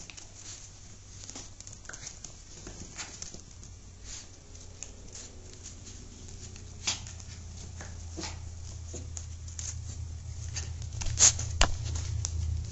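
Scattered light taps and rustles from a toy poodle puppy moving about and playing with plush toys on a blanket, with a few sharper knocks late on. Under them is a low steady hum that grows louder toward the end.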